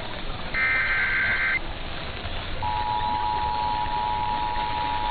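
Emergency Alert System tones: the last of the SAME digital header bursts, a harsh warbling data burst about a second long, then about a second later the steady two-tone EAS attention signal starts and holds. They announce an incoming alert.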